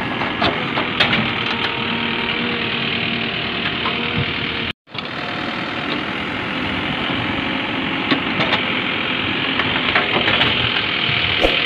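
A steady, engine-like running noise with scattered clicks of gravel being scooped and poured. It cuts out completely for an instant about five seconds in.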